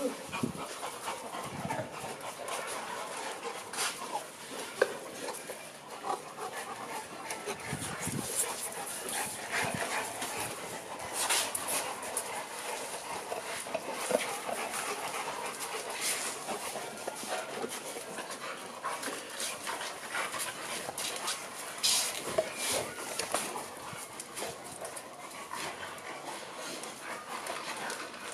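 Several bullmastiffs panting and whimpering as they crowd around for treats, with frequent short sharp sounds mixed in.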